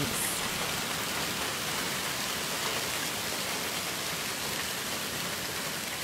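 Hailstorm: hail and heavy rain pelting the ground in a dense, steady patter.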